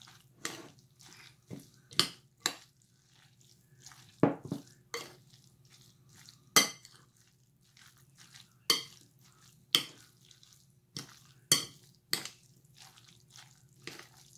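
A fork mixing chicken salad in a glass bowl: irregular sharp clinks of the fork against the glass, about a dozen, with fainter scraping ticks between.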